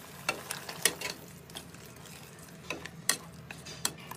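Metal ladle stirring a steel pot of duck soup, clinking against the pot several times at irregular intervals over a low, steady hiss from the pot.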